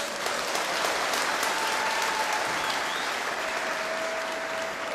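A theatre audience applauding steadily, a dense round of clapping.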